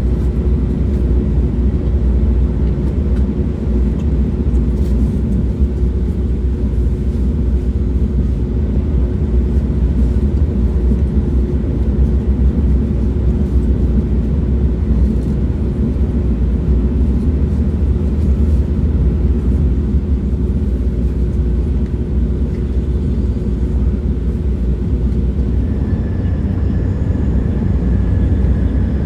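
Steady low rumble of a moving train, with a steady hum through it that gives way near the end to a faint higher whine.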